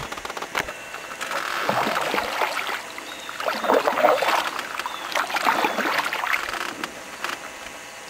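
Canoe paddle strokes and the hull moving through calm lake water: water swishing and splashing in two long surges, with a couple of sharp taps, one near the start and one near the end.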